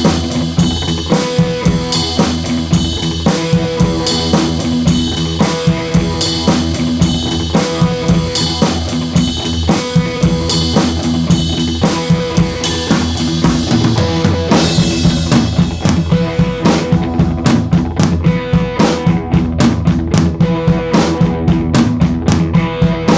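Background music with a drum kit keeping a steady beat over a bass line.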